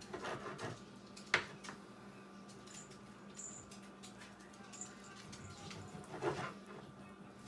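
A knife cutting raw stewing beef on a wooden cutting board: soft slicing sounds near the start and again near the end, with one sharp knock of the blade on the board about a second in. A faint steady hum runs underneath.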